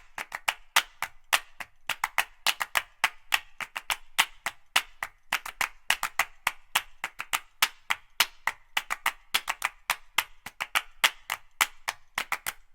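A quick, uneven run of sharp clicks, several a second, with nothing else sounding underneath.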